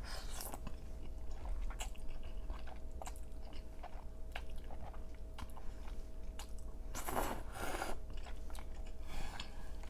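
Close-miked mouth sounds of eating creamy crawfish pasta: chewing with many short wet clicks and smacks. About seven seconds in come two longer hissing sounds, one right after the other.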